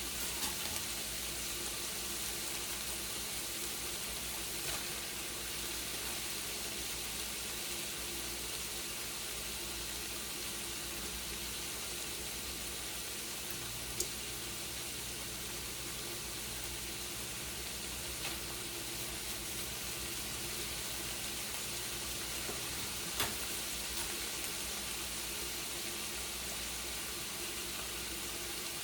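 Ground beef and onions sizzling steadily in a frying pan, with a few sharp clicks scattered through.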